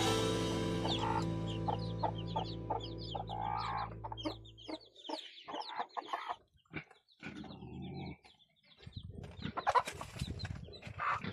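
Background music fades out over the first five seconds or so, then chickens cluck in short, separate calls.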